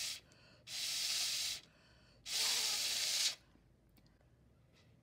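Airy puffs of breath blown hard through a drinking straw into a paper-cone ball blower, each about a second long: two full blows, with the end of an earlier one at the very start.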